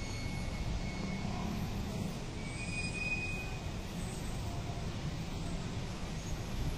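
Steady low rumble of road traffic, with a faint brief high tone about three seconds in.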